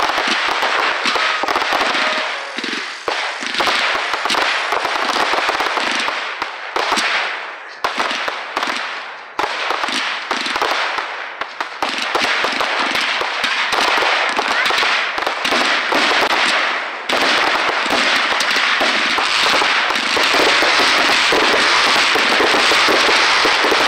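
Aerial fireworks going off in rapid succession: a dense run of pops, bangs and crackling. About two-thirds of the way through it thickens into a continuous, louder crackle.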